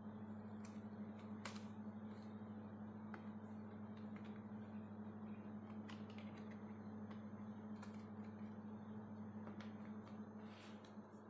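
Faint handling sounds of unboxing: a cardboard box sliding open and a thin plastic blister tray being lifted out and set down, heard as scattered light clicks and scrapes over a steady low hum.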